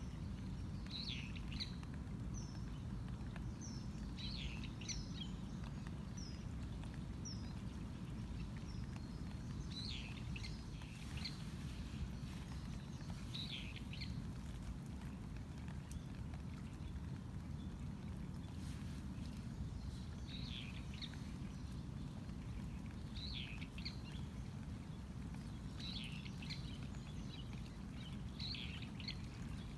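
Small birds chirping in short calls, a few at a time every second or two, over a steady low background rumble.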